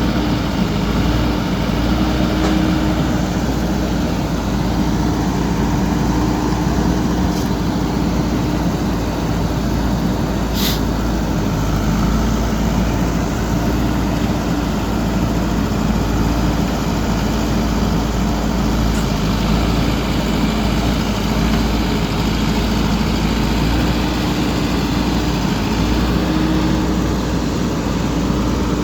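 JCB backhoe loader's diesel engine running steadily, its low note rising and falling a little. A sharp click comes about ten seconds in.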